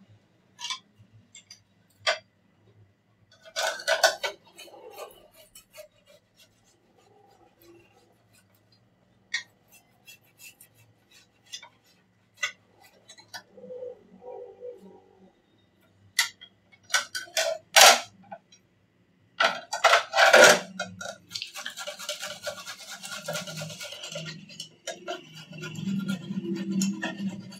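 Kitchen work at a counter: scattered clinks and knocks of dishes and utensils, then a few seconds of steady scrubbing hiss about two-thirds of the way through.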